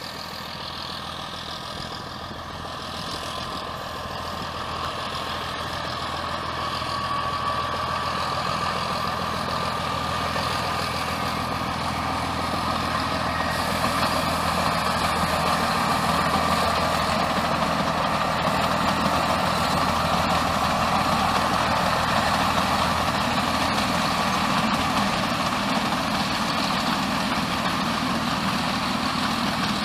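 ZDM4A narrow-gauge diesel locomotive's engine running under load as it accelerates a passenger train, growing louder over the first half and then holding steady.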